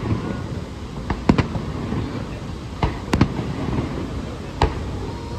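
Aerial fireworks shells bursting: five sharp bangs in about four seconds, some in close pairs, over a steady low background noise.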